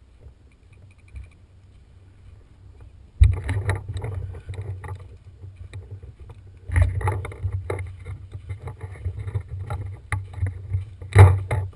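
Rumbling, scraping handling noise from a camera mounted on a paintball marker as the gun is moved, starting suddenly about three seconds in, with scattered clicks and knocks and a sharp knock near the end.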